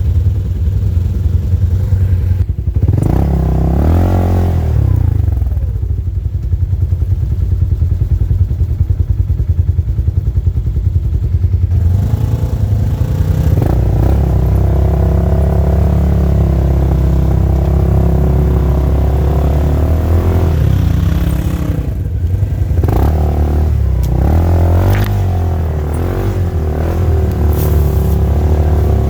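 Polaris RZR side-by-side engine running as it drives along the trail, a steady low drone that rises in pitch briefly about four seconds in and changes revs again later.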